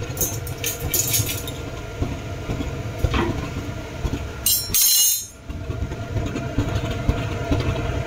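Kitchen sounds at a gas hob: a steady low rumble under light clinks of steel spoons and spice-box lids. A brief bright hiss about four and a half seconds in cuts off abruptly.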